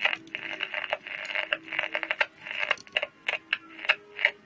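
Olimpik 402 transistor radio's small speaker crackling and clicking with static and broken fragments of distorted signal while tuning a shortwave band. The reception is faulty: the signal is overdeviated and garbled, which the owner feels points to a problem in the audio amplifier.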